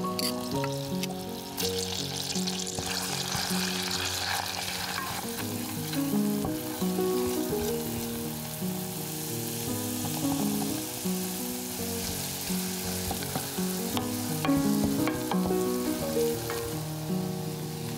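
Minced garlic sizzling in hot melted butter in a small stainless steel saucepan, stirred with a wooden spoon. The sizzle swells a couple of seconds in, with a few light spoon scrapes against the pan near the end.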